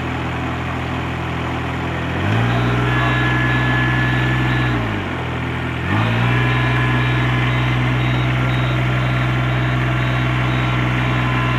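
Riding rice transplanter's diesel engine running; about two seconds in it speeds up to a higher steady speed, drops back to idle briefly near the middle, then speeds up again and holds.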